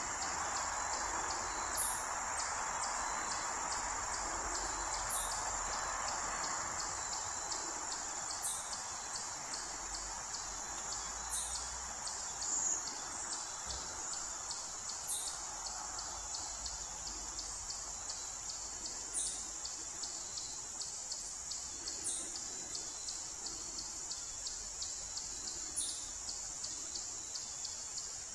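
Steady high trilling of crickets, with a short sharp chirp every three to four seconds. A soft rushing noise fades out over the first several seconds.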